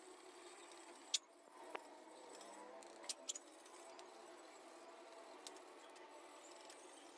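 Faint scrubbing of a brush over the wet, rusty steel blade of a grub hoe, with a few sharp clicks along the way.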